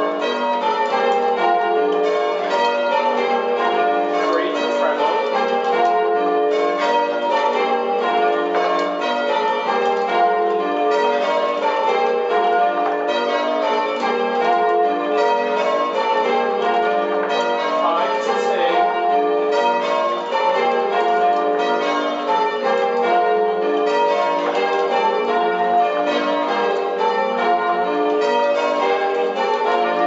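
A ring of six church bells, tenor 13 cwt, rung full circle on ropes, striking one after another in continuous descending runs, the rhythm of English change ringing.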